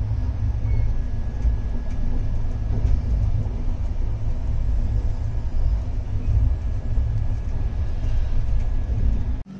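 Passenger train running along the line: a steady low rumble of the moving train, with a faint steady whine above it.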